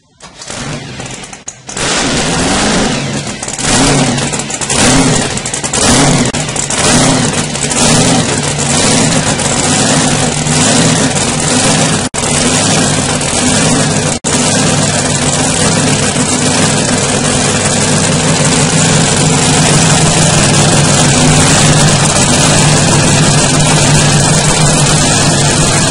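Supercharged V8 inboard speedboat engine with a roots-type blower, starting up and catching. It is blipped about once a second for several seconds, then settles into a steady high idle, with two momentary dropouts midway.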